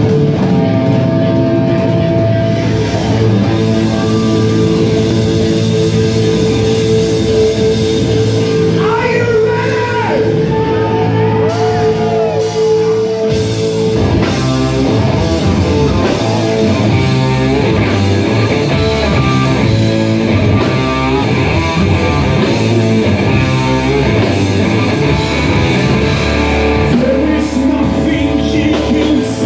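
A rock band playing live: electric guitar, electric bass and drum kit, with a male lead singer.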